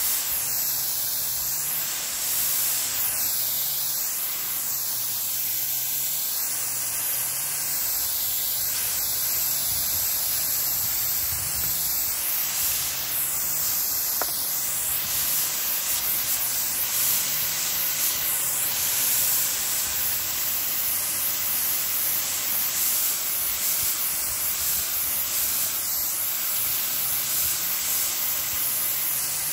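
Water spraying from a nozzle as a fine mist onto young pomelo trees: a steady hiss.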